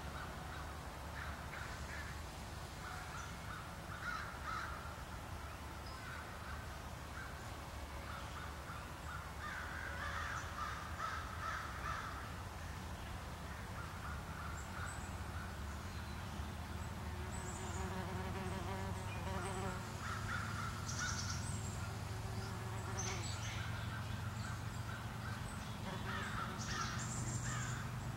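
Crows cawing again and again, with higher bird chirps here and there and a steady low rumble beneath.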